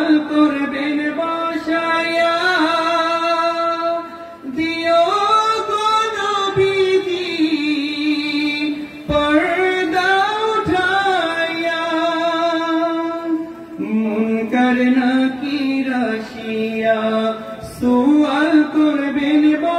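A man singing a Bengali Islamic gazal into a microphone, in long held phrases whose pitch bends and slides, pausing briefly for breath between lines.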